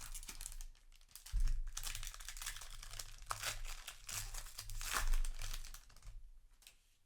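Foil wrapper of a Magic: The Gathering booster pack crinkling as it is handled and torn open. The crackle is dense and irregular, loudest a little over a second in and again around five seconds, and dies away near the end.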